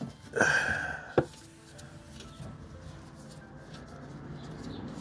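A short squeaky scrape, then a single sharp click, from a hand tool working the Torx screws of a car's plastic underbody cover, followed by faint low rustling.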